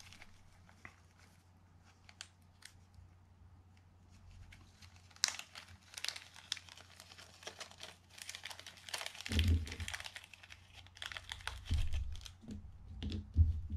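Small plastic parts bag being handled and opened, crinkling in the hands, busier from about five seconds in. In the second half come several dull knocks as the new fiber drag washers are tipped out onto the bench mat.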